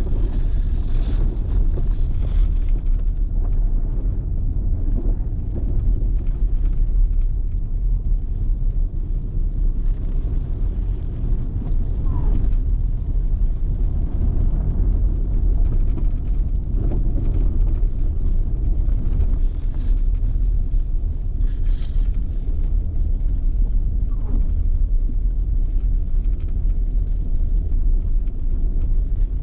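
Steady low rumble of vehicle and wind noise in a snowstorm. Twice, a faint short rising tone rises through it.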